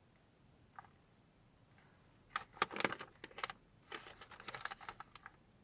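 Small parts and packaging being handled: a faint click, then a few seconds of rapid clicking and rustling.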